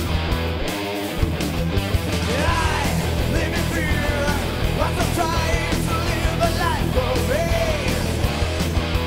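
Rock music with guitar, bass and drums keeping a steady beat, and a wavering melody line over it from about two seconds in until near the end.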